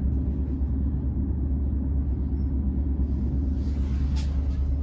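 Steady low rumble and drone of a Greater Anglia Class 755 bi-mode multiple unit running on its diesel power pack, heard inside the passenger saloon. There is a short hiss about four seconds in.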